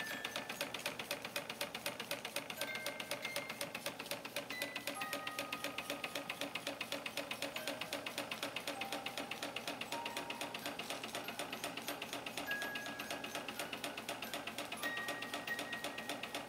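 Antique Märklin toy steam engine, a compound 'Verbund' locomobile, running and driving a toy carousel by belt: a rapid, even ticking, several beats a second. Single high notes of a slow tune sound now and then over it.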